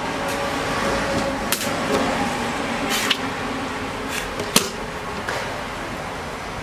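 A few sharp plastic clicks and knocks as a laptop's empty plastic keyboard top case is handled and set down on a workbench, over steady background noise.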